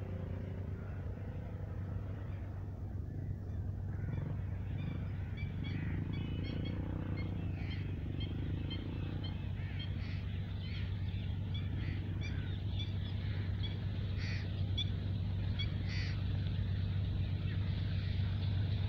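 GEU-40 diesel-electric locomotive hauling goods wagons, heard from afar as it approaches: a steady low drone that grows slowly louder toward the end. Many short bird chirps sound over it from a few seconds in.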